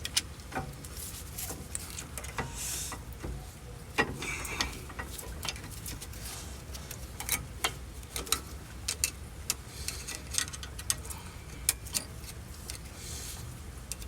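Irregular small metallic clicks and scrapes of a hand tool prying at the spring retaining clips on a rear brake caliper.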